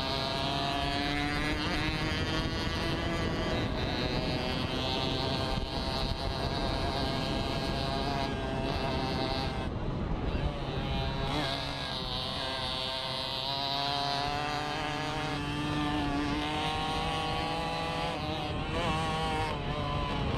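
Racing moped engines at high revs, heard from on board, the pitch climbing and dropping repeatedly as the riders accelerate, shift and ease off for the bends, with a brief dip about halfway through.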